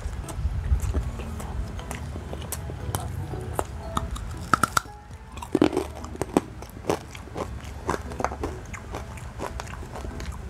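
A person chewing and biting lechon manok (roast chicken) close to a clip-on microphone, with many small crunches and mouth clicks.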